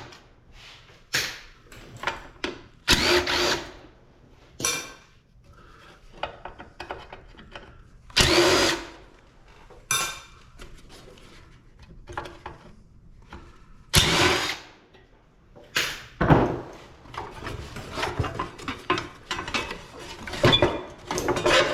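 Power drill run in repeated short bursts on a scrapped air-conditioner unit, with quieter gaps of a second or more between them.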